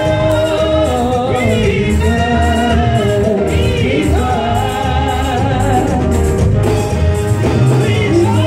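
Gospel worship song: singing with musical accompaniment that has a heavy bass pulse, continuous and loud.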